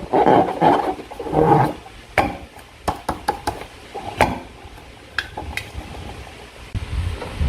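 Slime being worked, with wet squelching in the first two seconds, then a series of scattered sharp taps and clicks.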